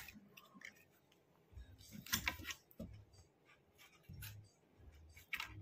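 Faint scraping and clicking of a fork digging packed biryani rice out of the jammed mouth of a bamboo tube, with a few soft low thumps as the tube is handled. The clicks cluster about two seconds in and again near the end.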